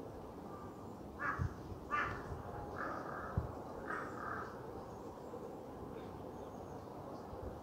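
A crow cawing four times, about a second apart, in the first half, with a couple of soft low thumps in between.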